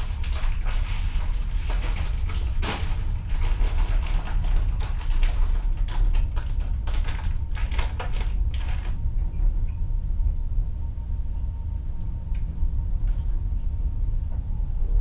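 Steady low rumble of a ship's hull underway, with a quick run of sharp slaps and splashes of waves against the hull that stops about nine seconds in, leaving the rumble and a faint steady hum.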